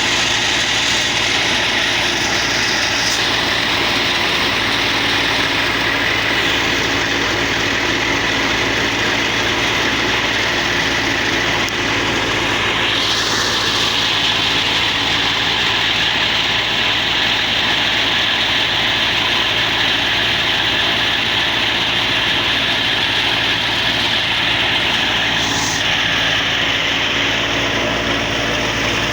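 Wheat threshing machine running steadily, giving a loud, continuous mechanical drone and rushing noise that stays the same throughout.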